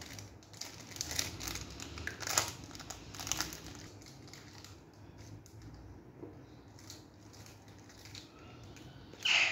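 A small snack wrapper crinkling and tearing as it is unwrapped by hand, busiest in the first few seconds and fainter after. A short, louder sound comes near the end.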